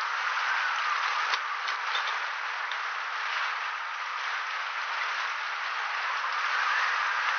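Steady rain, a dense even hiss, with a few sharp drip-like clicks about a second and a half in and a faint tone that rises and falls behind it.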